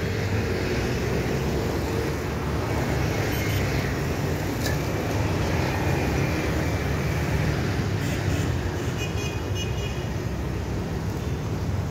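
Steady road traffic: motorcycle and small van engines running and tyres rumbling as they cross, with a brief high tone, like a horn, about nine seconds in.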